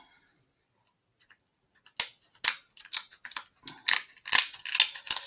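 Scissors snipping through cooked snow crab leg shells: about a dozen sharp crunching snips in quick succession, starting about two seconds in.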